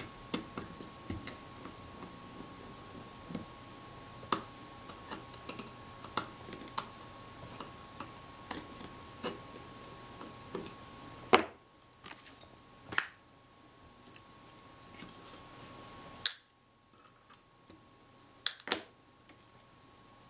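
Small clicks and ticks of a small screwdriver working the screws out of a Braun Paxette camera's metal top plate, scattered and irregular, with a few louder sharp taps in the second half.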